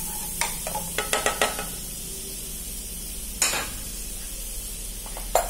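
Chopped garlic sizzling in melted butter in a non-stick kadai, a steady hiss. A wooden spatula stirs and knocks against the pan several times in the first second and a half, then taps twice more later.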